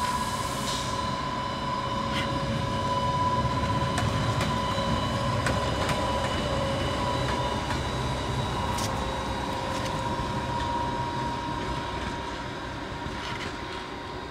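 Class 1600 electric locomotive running slowly on its own while shunting, with a steady high whine over a low rumble of wheels on rail. A few sharp clicks come through as it passes over rail joints. The sound fades a little near the end as it moves away.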